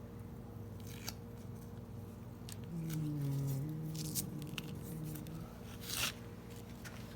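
Several sharp clicks and scrapes of small items being handled, over a steady low hum. For a couple of seconds in the middle someone hums or murmurs without words.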